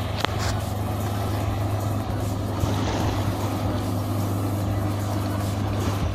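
Motorboat engine running at speed in a steady drone as the boat passes, towing a water-skier.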